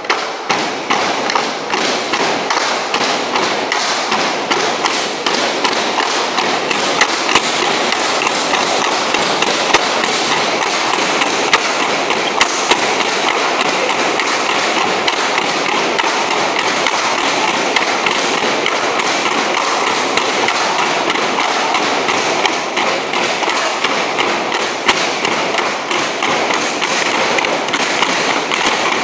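Bamboo tinikling poles knocked on a wooden floor and clapped together in a steady rhythm, about two sharp knocks a second, over a steady background din.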